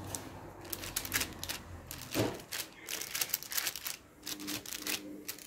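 A hand patting and pressing balls of bread dough flat on a parchment-lined metal baking tray, making light, irregular taps and paper rustles.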